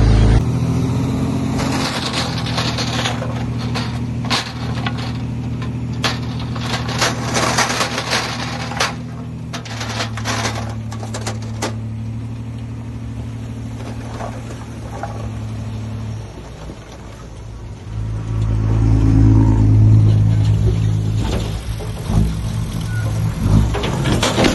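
Heavy diesel earthmoving machinery running steadily, with a rattle of clanks and knocks through the first half. The engine dies away about sixteen seconds in, then comes back louder and deeper a couple of seconds later.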